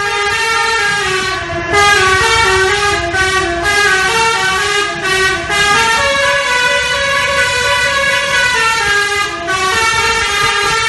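Basuri telolet bus horn, an Indonesian multi-tone bus horn, playing a melody of held notes that step up and down in pitch, with a few short breaks, over a low rumble.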